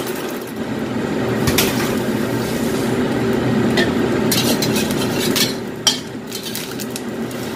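Beaten egg frying in oil in a stainless steel wok, with a metal spatula scraping and clinking against the wok several times, over the steady hum of a kitchen range hood blower.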